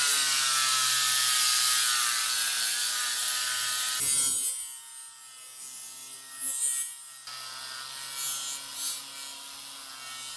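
Corded angle grinder with a sanding disc running flat on aluminium plate, its motor whining over the rasp of the disc scuffing the metal so that adhesive will grip. The grinding is loud for about four seconds, then quieter, with the motor whine still there.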